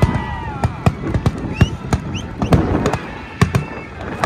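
Aerial fireworks crackling and popping after the bursts: a rapid, irregular series of sharp pops. They are loudest at first and thin out, with a few louder pops near the end.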